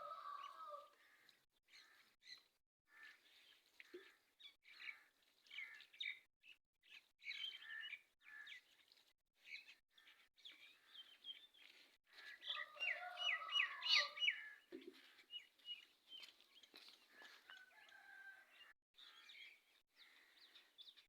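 Small birds chirping and calling faintly, with chickens calling among them; a quick run of repeated calls, the loudest part, comes about two-thirds of the way through.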